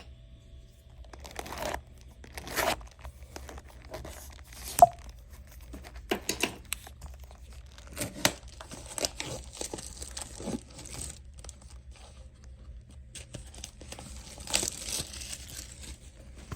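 Plastic shrink wrap being torn off a trading-card hobby box and crinkled, in several rustling stretches, with scattered taps and clicks of the box being handled and one sharp tap about five seconds in.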